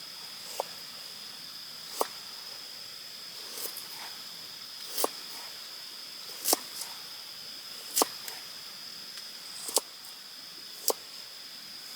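Insects droning at one steady high pitch in the forest, with a sharp click or tap about every second and a half.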